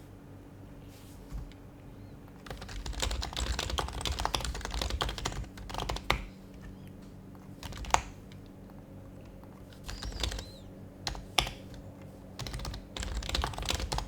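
Typing on an HHKB Professional HYBRID Type-S keyboard, its silenced Topre capacitive switches giving soft, muted keystrokes. It starts a couple of seconds in and comes in quick bursts with pauses between them, with a few single sharper keystrokes in between.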